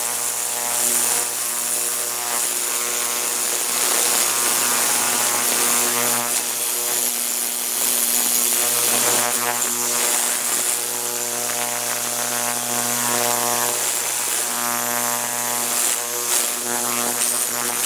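Ultrasonic cleaner running a cleaning cycle: a steady electric buzz with a strong hiss over it.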